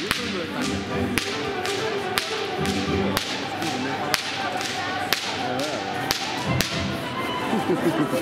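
Knife chopping on a cutting board: sharp taps about one or two a second, over background voices.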